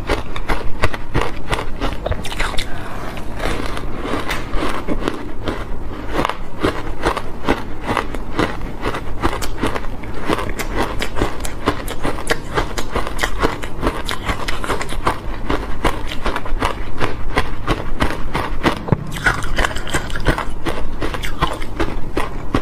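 Chewing on refrozen block ice coated in matcha powder: a continuous run of rapid, sharp crunches and crackles.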